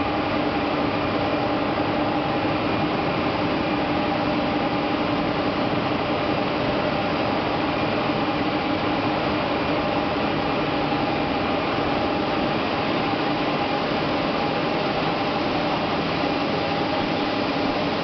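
Steady din of industrial machinery in an aluminium melting and casting plant: a continuous noise with a low, even hum that holds the same pitch throughout.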